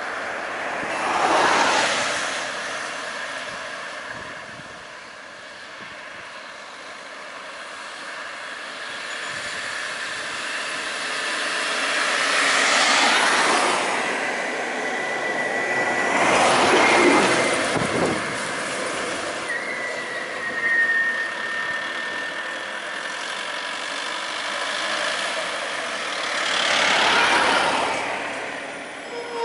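Road traffic on a highway: cars, vans and a bus driving by one after another, with about four close pass-bys that each swell and fade over the steady road noise. A thin high squeal is held for several seconds a little past halfway.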